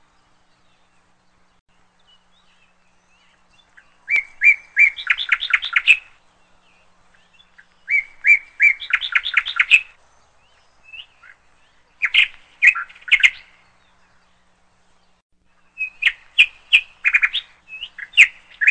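A songbird singing four short phrases about four seconds apart, each a quick run of repeated high chirps.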